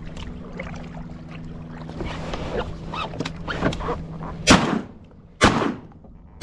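Shotgun fired twice about a second apart, each shot a sharp loud crack with a fading tail; a third shot follows right at the end.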